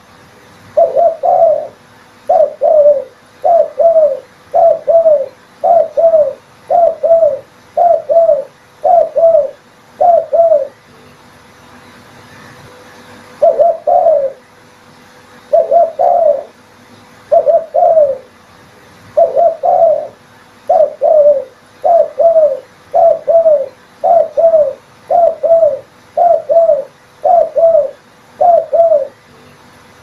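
Spotted dove cooing: a steady run of short two-note coos about once a second, with a pause of a few seconds about a third of the way in.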